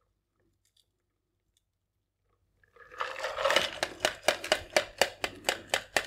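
Ice in a stainless-steel cocktail shaker tin clinking against a Hawthorne strainer as the last of a shaken drink is strained out, a rapid run of sharp clicks, about four a second, over a soft pouring hiss. It starts about three seconds in.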